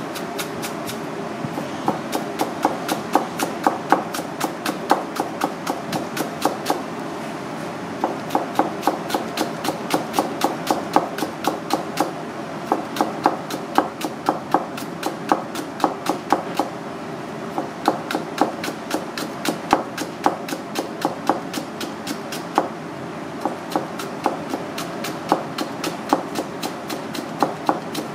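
Misono 440 chef's knife rapidly julienning a white vegetable, the blade tapping the cutting board at about four strokes a second, with brief pauses, over a steady background hum.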